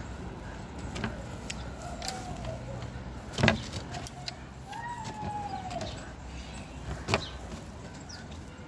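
Outdoor farmyard ambience: two sharp knocks, the first the loudest, and a few faint calls that rise and fall in pitch over a low background rumble.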